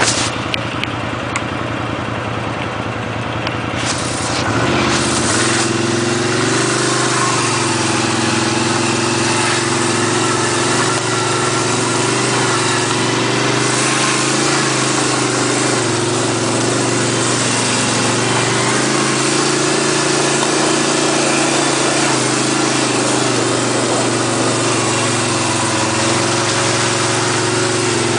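ATV engine running. It picks up about four seconds in, then keeps running under load with its pitch rising and falling.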